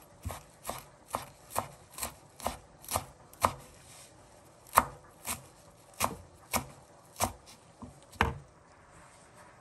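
Chef's knife chopping curly parsley on a bamboo cutting board: sharp strokes about two a second, with a short pause midway, stopping near the end.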